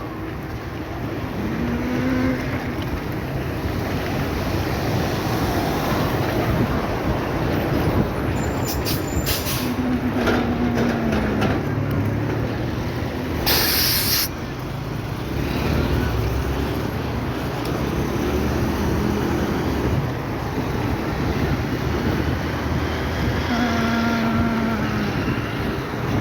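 Steady city-street traffic noise with vehicles passing, and a short, loud hiss about halfway through.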